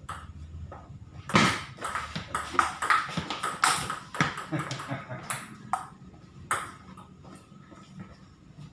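Table tennis rally on a Tibhar table: the ping-pong ball clicks sharply off the bats and bounces on the tabletop in quick succession. The strikes come thickest from about a second in to about six seconds in, then fall off.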